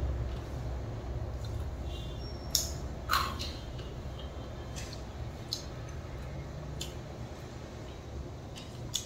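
Someone chewing a mouthful of crispy fried chicken bhujia with closed lips: scattered soft crunches and mouth clicks, the loudest two come about two and a half and three seconds in.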